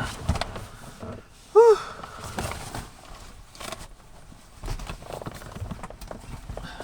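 A single short cry that rises and falls in pitch, about a second and a half in, amid rustling and small handling knocks.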